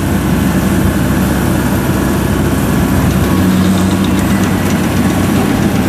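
Kubota DC70 combine harvester's diesel engine running steadily under load as the tracked machine crawls through a muddy ditch. It is a constant low hum whose note shifts slightly about three seconds in.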